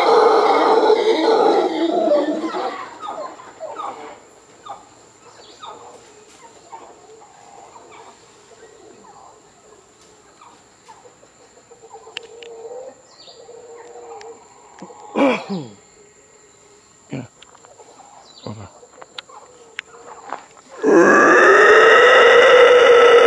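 Loud, deep howling fades away over the first couple of seconds, followed by quiet with a few faint scattered calls. About 21 seconds in, a man starts a loud, drawn-out imitation of a howler monkey's howl, its pitch rising and then falling.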